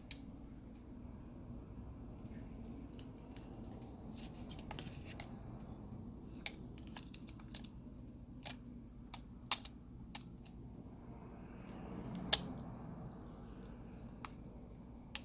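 Small parts of an opened smartphone being handled during reassembly: scattered, irregular sharp clicks and taps, a few of them louder, over a steady low hum.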